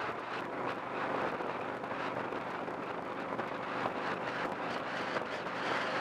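A car driving steadily at highway speed: a constant engine hum under tyre and road noise, with no change in speed.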